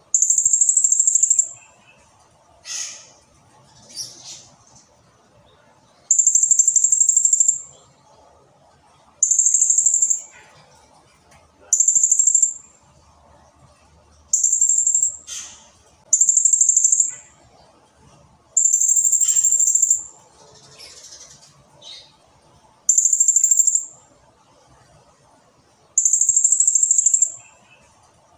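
Blue-crowned hanging parrot (serindit) calling: about nine very high, buzzy trills, each a second or so long, repeated every few seconds, with short falling notes between some of them.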